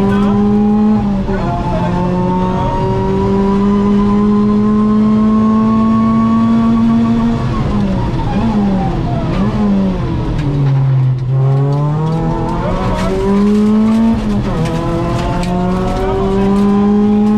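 Ford Fiesta ST rally car's four-cylinder engine, heard from inside the cabin, pulling hard under full throttle. It shifts up about a second in and climbs steadily in revs. Past the middle the revs fall and waver for a few seconds, reaching their lowest point, then the engine accelerates again and shifts up once more near the end.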